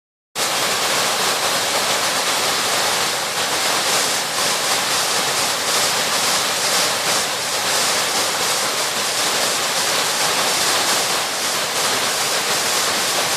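Water rushing steadily over the village brook's waterfall, running high after continuous rain: a dense, even hiss of falling water that cuts in abruptly just after the start.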